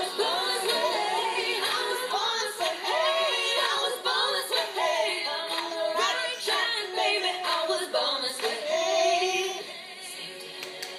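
A young girl singing a pop song on her own, her voice sliding up and down in pitch. The singing falls away near the end.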